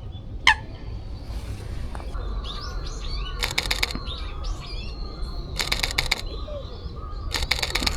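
A digital camera's shutter firing in three short rapid bursts, each a quick run of clicks. Small birds chirp in the background.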